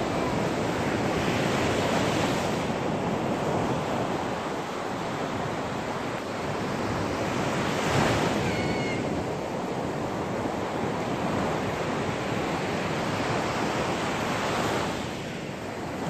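Sea waves breaking and washing up a sandy shore: a continuous surf noise that swells and eases with each wave, loudest about eight seconds in.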